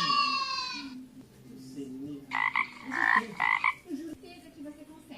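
Animal calls played one after another: a short pitched call with a slightly falling tone at the start, then a run of about five quick pulsed calls a little over two seconds in.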